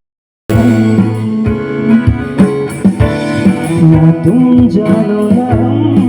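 Background music with a plucked guitar and singing, starting after a brief cut to silence.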